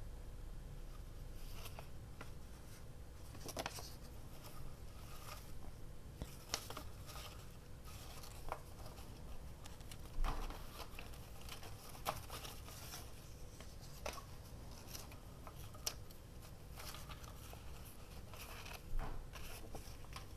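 Paper scraps being handled at a craft desk: irregular light rustles and scattered short, sharp clicks, a little louder about halfway through and near the end.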